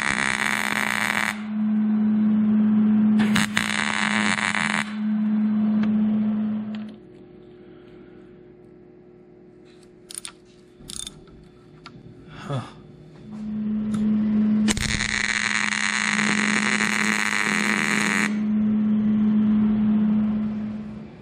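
Welding arc crackling and hissing in three bursts as a nut is welded onto a stripped steel bolt: a short burst at the start, another about three seconds in, and a longer one of about three seconds in the second half. A steady low hum runs under and between the bursts, dropping out for several seconds in the middle, where a few light clicks are heard.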